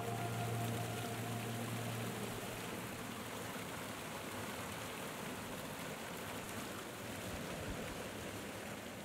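Steady rushing splash of the fountain's water falling into its basin. The low last note of the music dies away in the first few seconds.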